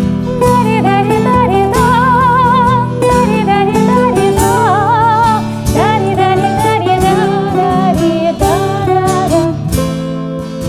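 A woman's voice singing a melody with wide vibrato over a bouzouki and an acoustic guitar, which strum and pick a steady rhythm. The notes are held and wavering, with the strings sounding continuously underneath.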